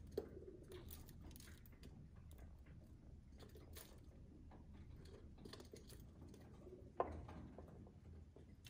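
Rock pigeons pecking seed from a bowl on a window ledge, heard faintly through the window glass as scattered light taps of beaks on the bowl and sill, with two sharper knocks, about a quarter second in and about seven seconds in. Faint pigeon coos.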